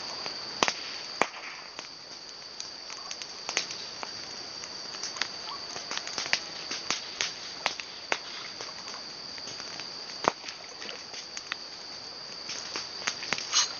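Steady high-pitched insect drone, with scattered sharp clicks and taps.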